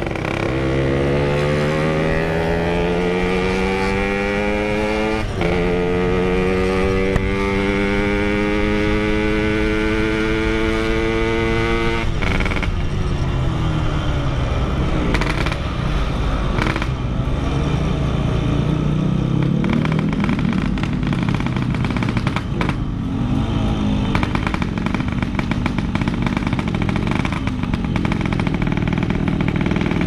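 Yamaha RX-King two-stroke single-cylinder motorcycle engine under way, its pitch climbing steadily as the bike accelerates. The climb breaks briefly about five seconds in, as at a gear change. From about twelve seconds in it drops to lower, uneven revs.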